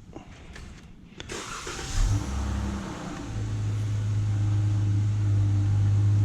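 A car engine starts about two seconds in, flares briefly, then settles into a steady idle hum.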